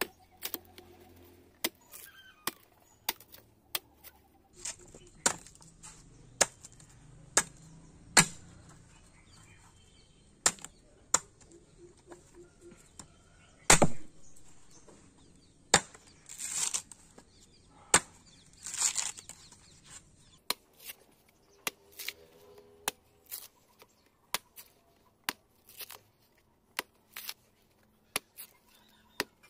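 Machete chopping the husk of a tender green coconut: a run of sharp chops at irregular intervals, often one or two a second, with a couple of longer rasping strokes partway through.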